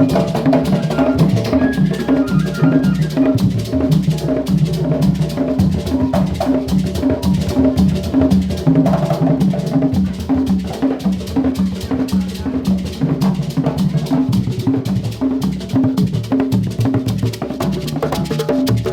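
African percussion music: drums and other struck instruments playing a fast, steady, repeating rhythm of pitched low strokes over many sharp clicking hits.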